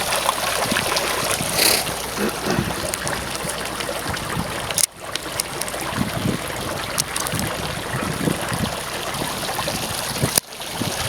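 Water trickling and splashing over a steady rushing noise, which briefly drops out twice.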